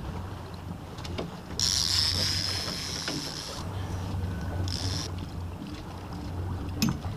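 Fishing reel drag buzzing as a hooked salmon pulls line: one spell of about two seconds, then a short one. Under it a boat's engine runs steadily.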